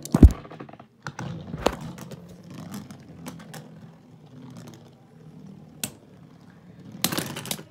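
A Lego-built Beyblade and a plastic Beyblade spinning on a hard plastic box lid, with scattered clicks and knocks as the tops strike each other and the surface. A loud thump about a quarter second in, and a quick cluster of clicks near the end.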